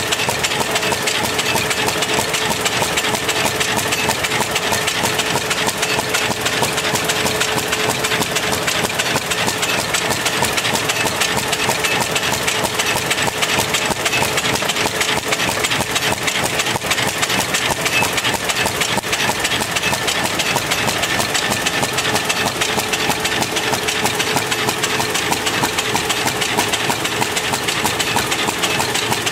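SUNHOPE 518TH flat paper-bag handle making unit running at production speed: a steady, dense mechanical clatter of fast ticking, with a faint steady hum through roughly the first half.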